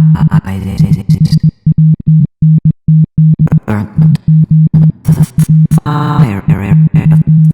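Glitchy electronic music: a low synthesizer tone switched on and off in rapid, irregular stutters, with short chopped fragments over it and a brief drop-out about two seconds in.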